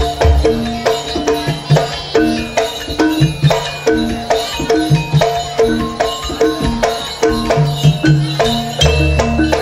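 Live jaranan gamelan music: hand drum strokes and low drum thumps under short, repeating metallic gong-chime notes in a steady rhythm.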